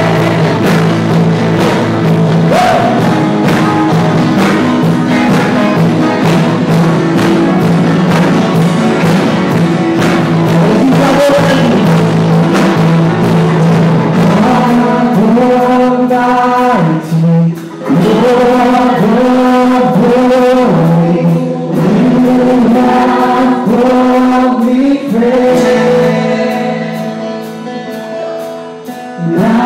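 Live contemporary worship song from a praise band: amplified singers leading a melody over electric guitars and band backing. The band drops to a softer passage near the end.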